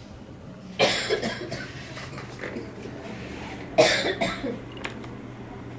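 A person coughs twice, about three seconds apart, each cough a sudden loud burst that trails off.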